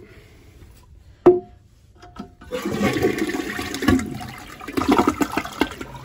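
American Standard 1.6 gpf toilet being test-flushed after a new fill valve and flapper were fitted: a sharp knock with a short ring about a second in, then water rushes from the tank into the bowl from about two and a half seconds in.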